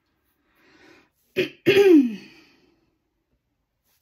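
A person clears their throat with a sharp cough about a second and a half in, after a short breath, ending in a falling voiced tail.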